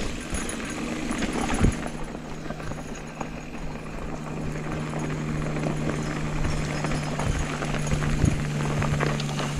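Mountain bike rolling downhill over a loose, rocky gravel trail: tyres crunching and the bike rattling over stones, with wind rushing past, and a steady low hum coming in about two seconds in.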